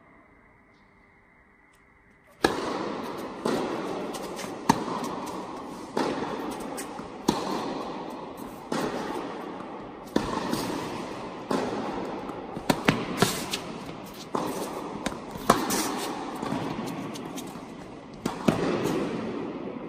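Tennis balls struck by rackets and bouncing on an indoor hard court during a rally: sharp pops about once a second, each with a long echo in the hall. The rally starts about two and a half seconds in, after near silence.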